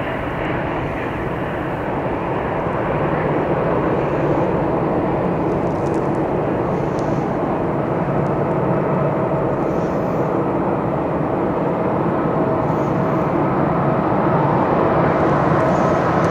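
Airbus A330neo's Rolls-Royce Trent 7000 jet engines at takeoff power: a steady, dense jet roar with a faint hum running through it, slowly growing louder toward the end.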